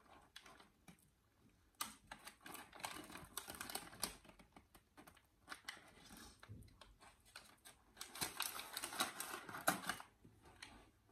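Close-miked biting and chewing of a fish sandwich in a bread roll: two stretches of dense, clicky crunching, one about two seconds in and a louder one about eight seconds in.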